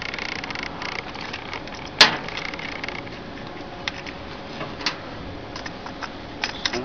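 Small metallic clicks and rustling from handling the wiring and terminals of ceramic band heaters on a briquette machine's steel barrel. There is a sharp click about two seconds in and a lighter one near five seconds.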